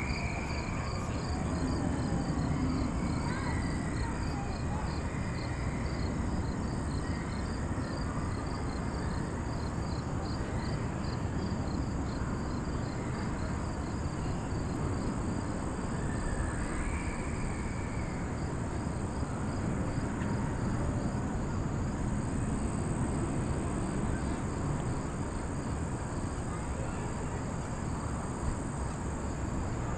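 Insects chirping in the surrounding trees: a rapid, evenly pulsing trill and a steady high buzz that run on without a break, over a low rumble.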